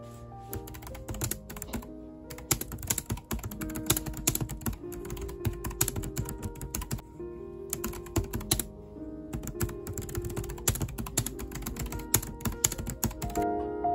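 Fast typing on a slim white multi-device wireless keyboard, the plastic keys clicking in quick runs, with two short pauses a little past halfway and stopping just before the end. Background piano music plays underneath.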